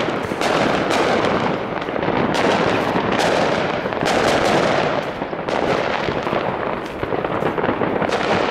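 New Year's fireworks and firecrackers going off all around in a dense, unbroken barrage: many loud bangs and cracks overlapping without a pause.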